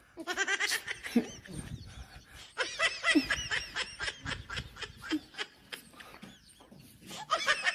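A person laughing in runs of quick, rapid pulses, with a short lull near six seconds in before the laughter starts again.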